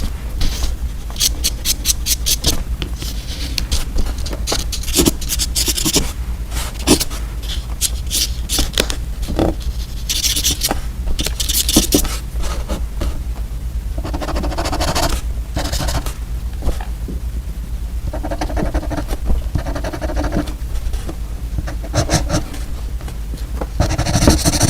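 Close-miked scraping and scratching with many sharp clicks, from edible paper and candy pen markers being handled.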